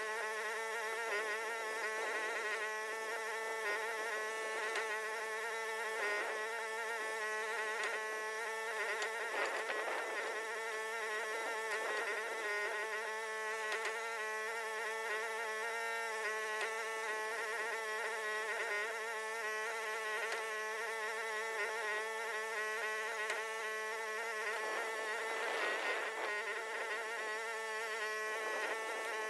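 Mini excavator's engine running steadily, a continuous buzzing drone whose pitch wavers slightly up and down.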